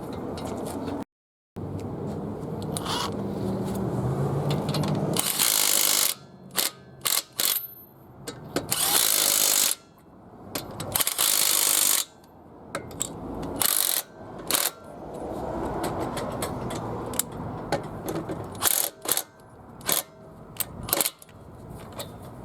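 Cordless 1/2-inch impact wrench hammering in several short bursts on wheel lug nuts, with clicks and metal clatter of the socket and parts between the bursts.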